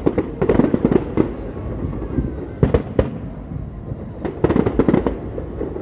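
Distant fireworks display: aerial shells bursting in three quick volleys of sharp bangs and pops, one at the start, one near the middle and one near the end.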